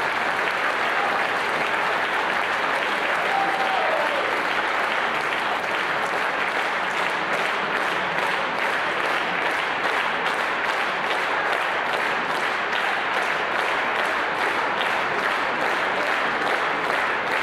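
Concert hall audience applauding, the clapping falling into a rhythmic unison beat of about two to three claps a second from about seven seconds in.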